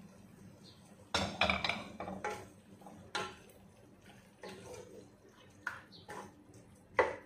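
Chopped greens scraped from a plate into a stone-coated cooking pot, then a wooden spoon stirring chicken pieces in the pot, giving irregular knocks and scrapes against the pot. The loudest clatters come about a second in and just before the end.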